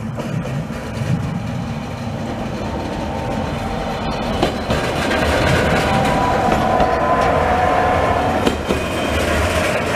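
Narrow-gauge electric railcar passing close by, growing louder as it approaches, with a steady whine and a few wheel clicks as it goes past.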